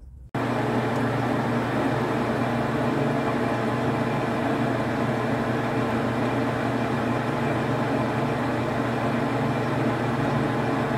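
Small metal lathe running, its chuck spinning a steel part with the boring bar at the bore: a steady motor and gear hum with a few constant tones.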